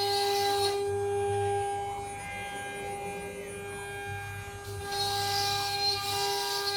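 CNC router spindle running with a steady whine while cutting a decorative partition panel. A hissing cutting noise comes through for the first second and again from about five seconds in, and is quieter in between.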